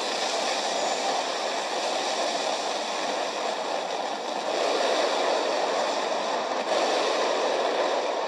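A large fireworks display and the crowd watching it, blended into a steady, dense roar with no separate bangs standing out.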